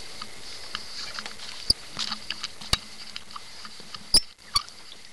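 Small clicks and rustles of dry grass against a shotgun and its barrel-mounted gun camera as the gun is shifted, with four sharp knocks, the loudest about four seconds in, over a faint steady high hiss.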